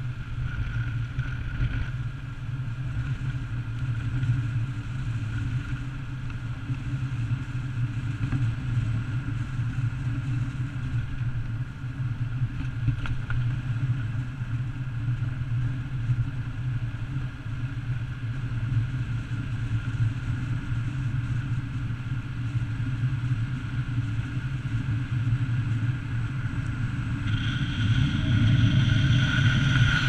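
Steady low rumble of a car driving on a gravel road, heard from a camera fixed to the outside of the car, tyre, engine and wind noise together; it grows a little louder and hissier near the end.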